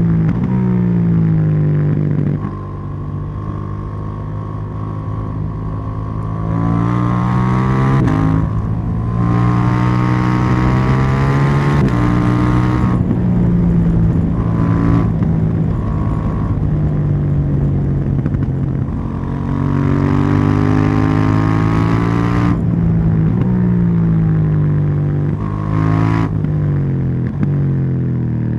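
KTM 790 Duke's parallel-twin engine under way, revving up through the gears with its pitch climbing and then dropping sharply at each shift. Between the pulls the throttle eases off and the note falls away, with a rush of wind during the faster runs.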